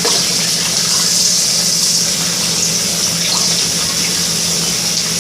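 Water tap running steadily, an even splashing hiss over a constant low hum; the water has not yet turned hot.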